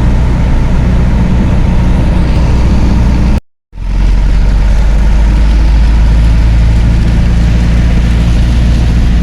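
Chevrolet D-20 diesel pickup driving on the highway, heard from inside the cab: a steady engine drone with road noise. The sound cuts out completely for a moment about three and a half seconds in.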